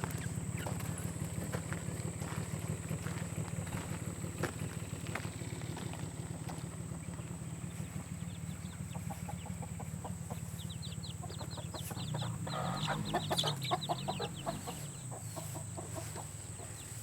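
Young chickens in a hatchery pen calling: a run of quick, repeated high peeps and clucks that builds in the second half, over a steady low hum.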